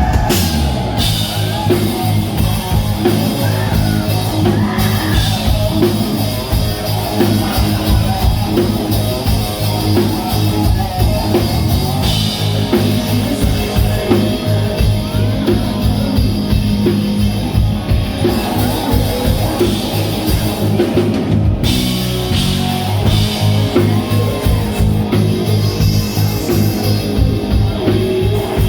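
Glam rock band playing live: a steady driving drum-kit beat under electric guitars and bass, with lead vocals.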